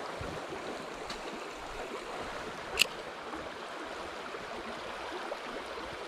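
Small mountain stream running over stones, a steady rush of water. One short, sharp click about three seconds in.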